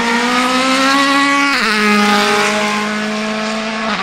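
Mercedes-AMG C63 DTM race car's naturally aspirated 4.0-litre V8 accelerating hard, its note rising. About one and a half seconds in it drops sharply with an upshift, pulls again, and drops once more with a second upshift near the end.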